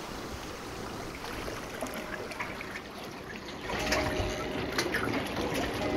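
Lake water lapping and trickling in small splashes, louder from a little past halfway.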